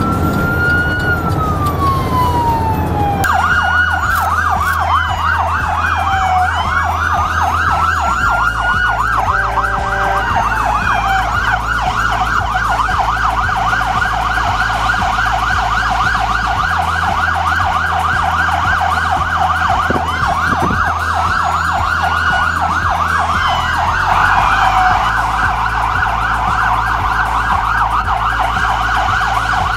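Several emergency-vehicle sirens sounding together, typical of fire trucks in procession. A slow wail rises and falls, and about three seconds in a rapid yelp joins it and keeps going, with the siren tones overlapping.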